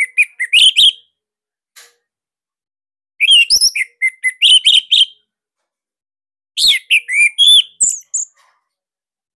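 Orange-headed thrush (anis merah) singing loud, rapid phrases of sweeping whistled notes in three bursts, separated by short pauses.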